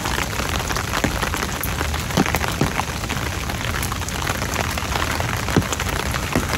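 Steady rain pattering on an open umbrella held just above the microphone: an even hiss scattered with many sharp taps of single drops.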